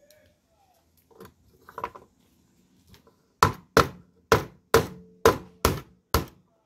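A few soft cracks of boiled king crab shell being broken apart by hand about a second in, then a knife chopping through a king crab leg onto a bamboo cutting board: seven sharp chops, about two a second.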